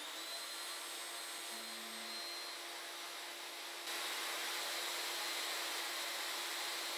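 CNC router spindle running freely at full speed with the end mill spinning just above the MDF, not yet cutting: a steady motor whine that steps up in level about four seconds in.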